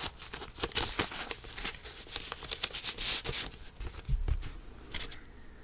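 A 7-inch record's card picture sleeve and paper inner sleeve being handled: a run of paper rustles, slides and light taps that dies away about five seconds in.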